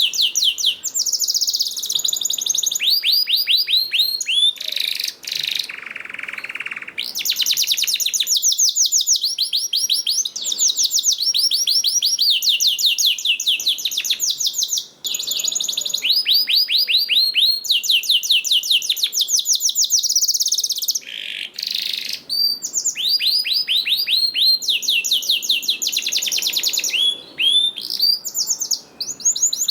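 Domestic canary singing a continuous song of rapid trills, each phrase a quick run of repeated high chirps before switching to a new phrase, with a short lower, buzzy phrase about six seconds in.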